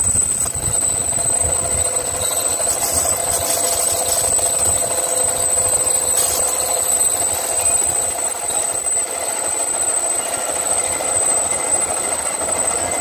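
Engine lathe cutting a groove into a spinning 25 mm metal plate disc: a steady metal-on-metal cutting noise with a high steady whine over the machine running.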